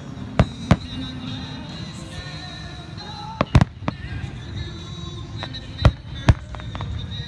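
Aerial fireworks shells bursting in a series of sharp bangs, several coming in quick pairs: two about half a second in, two more about three and a half seconds in, and another pair near six seconds. Music plays underneath throughout.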